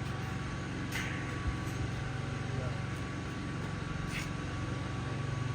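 A steady low machine hum at an even level, with two brief sharp ticks, about a second in and about four seconds in.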